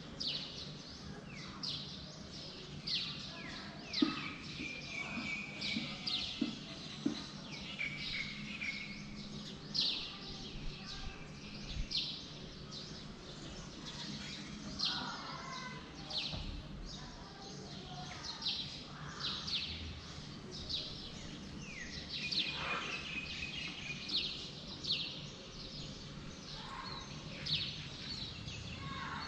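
Birds chirping: many short, quickly falling chirps repeating every half second or so, over a steady low background hum.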